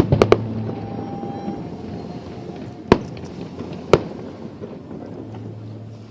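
Fireworks shells bursting over the water: a quick burst of three sharp bangs at the start, then two single loud bangs about a second apart around three and four seconds in.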